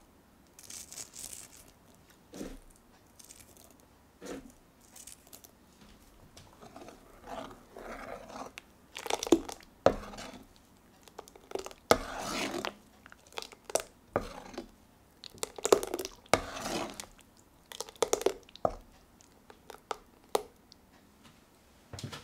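A metal ladle stirring thick blended pumpkin soup in an enamelled pot: irregular wet, squelching scrapes and sharp clinks of metal against the pot. The stirring is busiest in the middle of the stretch.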